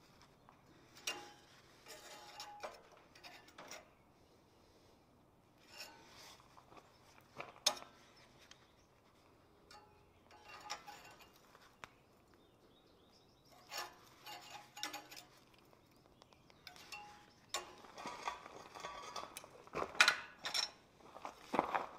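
Steel tongs and hand tools clinking, tapping and scraping against forged iron scrollwork held in a vise, in scattered short clinks that get busier near the end.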